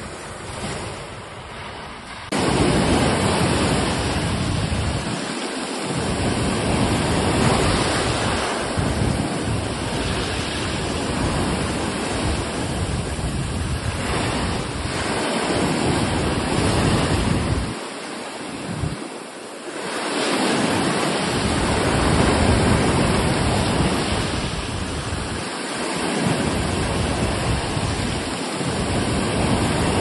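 Steady rush of surf and wind, with wind rumbling on the microphone. The sound jumps abruptly louder about two seconds in, and the low rumble drops away briefly a few times.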